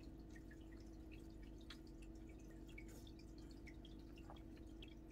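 Near silence: a steady low room hum, with faint scattered ticks and rustles of a crochet hook working cotton yarn and the crocheted fabric being handled.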